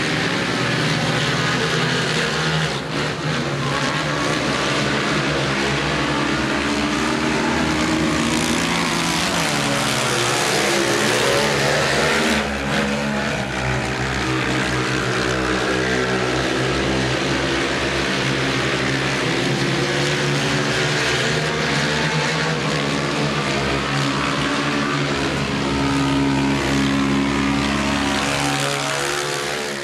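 Several racing quad bikes (ATVs) running hard around a dirt speedway track, their engines loud and overlapping, rising and falling in pitch as they come through the bends.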